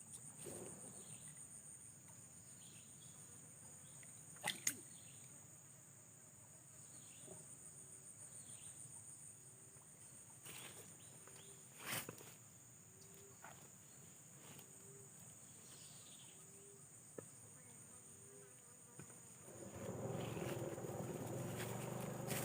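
Insects chirring steadily at a high pitch, with a soft low note repeating about once a second through the middle and a few sharp clicks. A louder rustling noise starts near the end.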